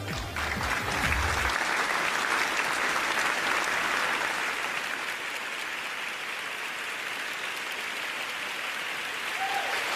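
Large audience applauding steadily, a little quieter in the second half.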